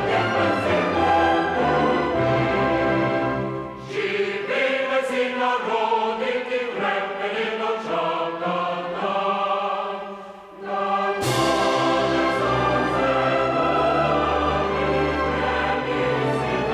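Choir singing with orchestral accompaniment. The bass and lower parts drop out about four seconds in, leaving a lighter, higher passage, and the full sound returns about eleven seconds in.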